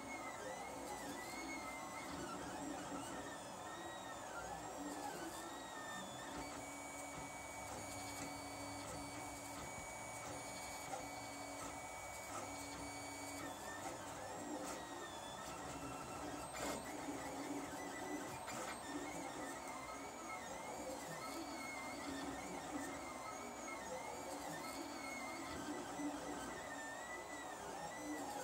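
Lulzbot TAZ 3 3D printer printing, its stepper motors whining in short rising and falling sweeps as the print head and bed change direction. From about six seconds in to about thirteen seconds in the whine turns to steady held tones, then the sweeps return.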